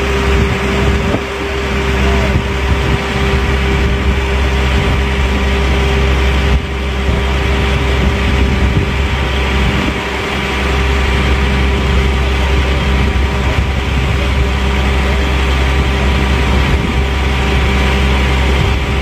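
Steady low rumble of a vehicle's engine and road noise while driving along a motorway, with a constant hum over it.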